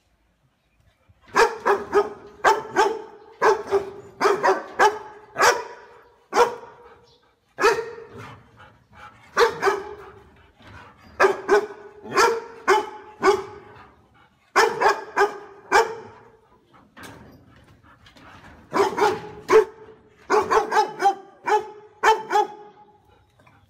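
A large dog barking loudly and repeatedly, in runs of two to five barks with pauses of a second or two between runs; the barking starts about a second and a half in.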